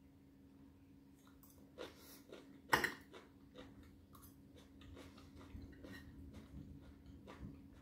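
Faint taps and clicks of a knife and fork on a salad plate, with one sharper clink about three seconds in, over a steady low hum.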